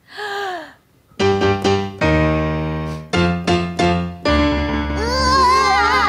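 Electronic keyboard playing a few quick notes and then held low chords, with warbling tones near the end: an attempt to imitate a puppy's barking on the keyboard.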